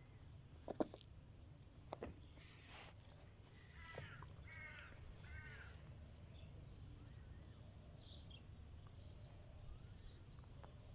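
Three short arched animal calls in quick succession about halfway through, preceded by a few soft knocks and a brief rustle.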